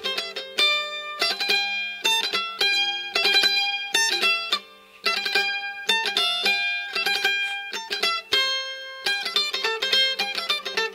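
Background music: a quick melody of plucked string notes over a steady low tone, with a short break about halfway through.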